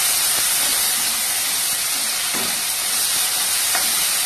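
Chopped onions and tomatoes sizzling in hot oil in a kadai as a metal spatula stirs them, a steady frying hiss.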